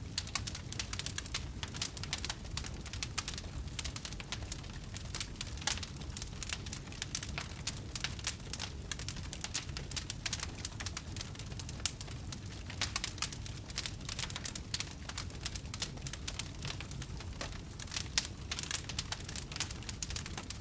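Wood campfire crackling, with many small irregular pops and snaps over a steady low rumble of the burning fire.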